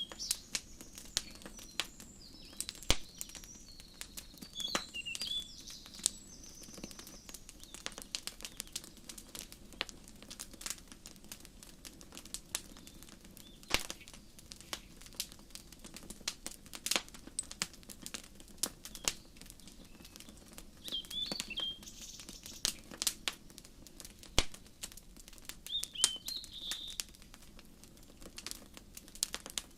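Wood fire crackling with irregular sharp pops and snaps, while small songbirds chirp in short high phrases in the first few seconds and twice more later on.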